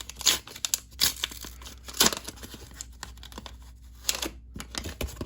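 Trading-card pack wrapper being torn open and crinkled by hand, in a run of short rips and rustles, loudest about two seconds in.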